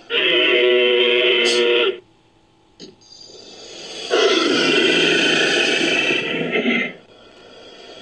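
Invented creature vocal sound effect, mixed from a crocodilian recording and a Nanotyrannus sound effect. It comes as two calls: a steady pitched one about two seconds long, then after a short pause a rougher, noisier one about three seconds long.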